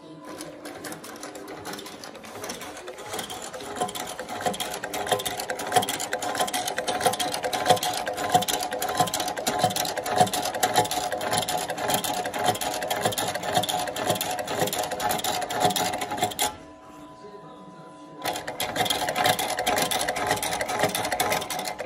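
CMCI M91 industrial shoe-sole stitching machine running, sewing an upper to a sole with a fast, even run of needle strokes. About three-quarters of the way in it stops for nearly two seconds, leaving only a quieter steady hum, then starts stitching again.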